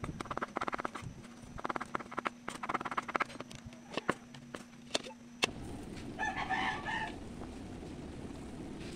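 Kitchen knife slicing hotdogs on a wooden cutting board, quick taps in short runs. About five seconds in it gives way to a steady hiss, and a rooster crows briefly soon after.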